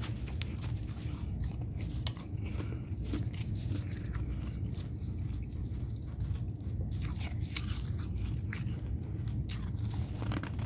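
Chewing and crunching freezer frost and ice close to the microphone: a dense, irregular run of crisp crunches.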